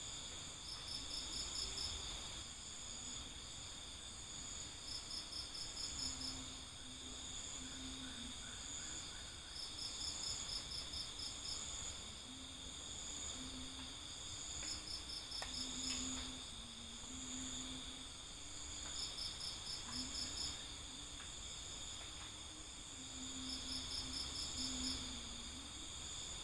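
Forest insect chorus: steady high-pitched cricket trilling, with a short run of rapid chirps that repeats about every four seconds.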